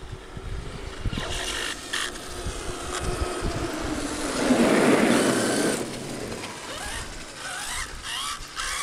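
Traxxas X-Maxx electric RC monster truck driving past at speed, its motor and tyre noise swelling to a peak about five seconds in and then fading. Near the end, rising whines from a second RC car come in.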